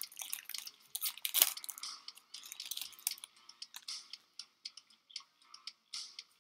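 Light crinkling and clicking of a foil trading-card booster pack wrapper and the cards being handled, with one sharper click about a second and a half in.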